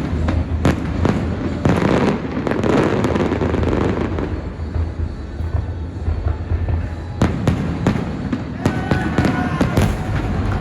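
Aerial fireworks bursting: a quick run of sharp bangs and crackling in the first few seconds, a lull, then another flurry of bangs in the last few seconds, over the show's music soundtrack.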